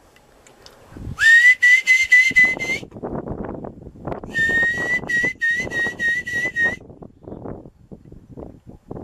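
A high, steady whistle-like tone sounds twice, each time for about a second and a half, pulsing about six times per burst. Uneven rustling noise runs beneath it from about two seconds in.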